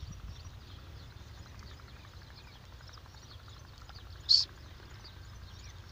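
Many small birds chirping in the background over a low, steady rumble of open air. About four seconds in, a single short, sharp, high-pitched sound close by stands out as the loudest thing.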